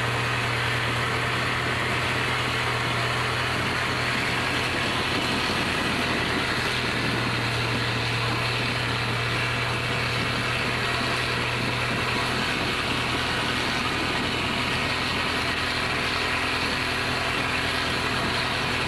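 Boat engine running steadily: a constant low drone with an even rush of noise over it, unchanging throughout.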